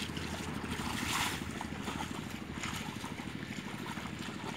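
Wind rumbling on the microphone over water sloshing and splashing as a person wades through a flooded rice paddy, with a short louder splash about a second in.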